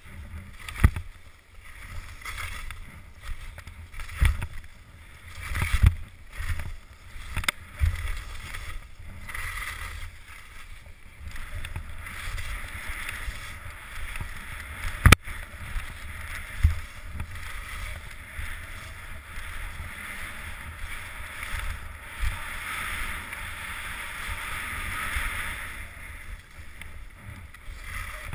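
Skis hissing and scraping over chopped-up snow through a series of turns, with wind rumbling on the microphone. Several sharp knocks come in the first half, and the sharpest comes about halfway through.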